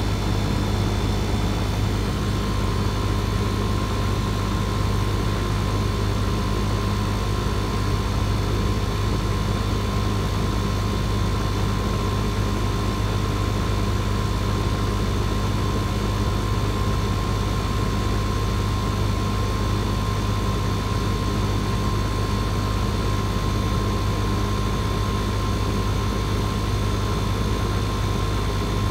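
Outdoor air-conditioning condensing unit running steadily: the compressor's low hum under the condenser fan's even rush, with a thin steady whine above. The compressor is running on an R-410A system that is low on charge and being topped up, and has started to sound a little more normal.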